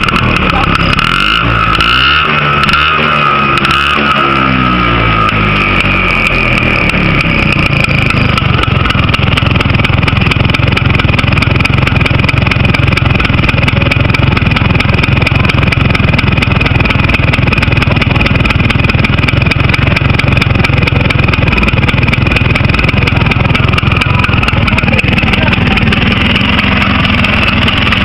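A vehicle's engine and exhaust on an original, never-rebuilt engine with its factory pistons, revved up and down a few times in the first seconds, then running steadily.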